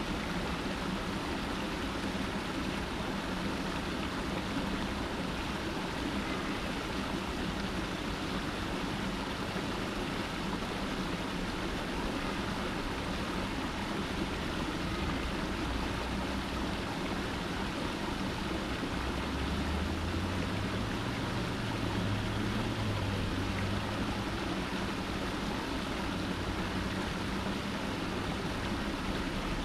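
Water running steadily over a small rock cascade into a stone-edged stream. A low hum swells in the background a little past the middle, then fades.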